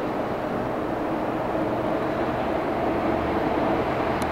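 A train running in the distance: a steady rumble with an even, low drone.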